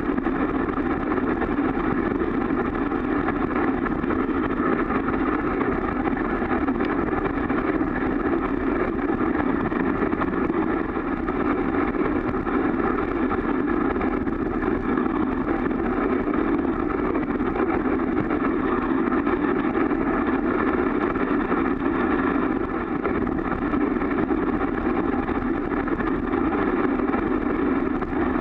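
Steady rushing noise of a dog sled travelling over snow: the sled's runners sliding and wind against a camera in a waterproof case, which muffles it.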